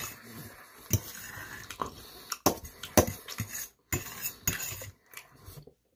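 Metal fork clinking and scraping against a stainless steel bowl as food is scooped up, with a handful of sharp clinks scattered through.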